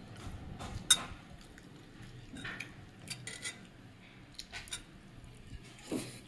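Scattered light clinks and taps of dishes on a glass tabletop during a meal, with one sharp click about a second in and a few softer taps after it.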